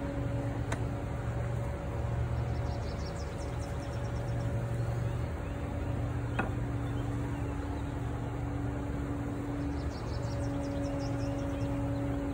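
Honeybees humming in a steady drone.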